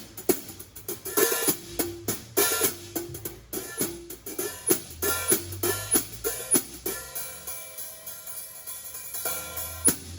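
Hi-hat cymbal of a drum set struck with wire brushes, a quick uneven run of taps several times a second; near the end the strikes thin out and the cymbal is left to ring.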